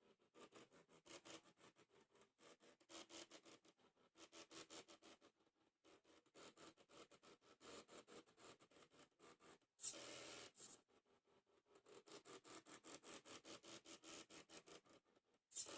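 Small DVD-drive stepper motors of a mini CNC plotter stepping in runs, a rapid pulsing buzz of about ten pulses a second with short pauses between strokes. Two brief louder bursts come about two thirds in and near the end.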